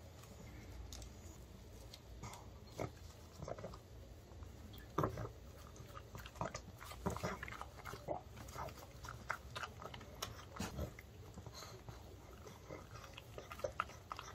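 Pug eating an oven-baked, rice-flour-coated chicken treat from a hand: irregular sharp crunching bites and chewing mixed with wet licking and mouth smacking.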